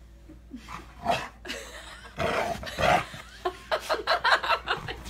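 A frightened dog growling and barking in short bursts, coming faster near the end, in fear of a toothbrush held toward it.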